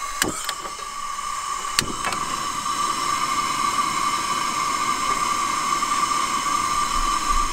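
Gas burners under a camp-kitchen steel griddle hissing steadily after being lit, with a steady high tone running through the hiss. Two sharp clicks come near the start as the burner knob is worked, and the hiss grows a little louder after the second.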